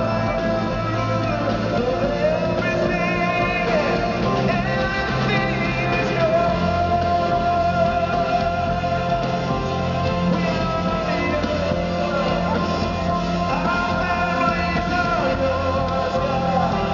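Live pop-rock worship song: a male lead vocal over a full band with guitar and a steady bass line, heard through an arena's sound system from the stands.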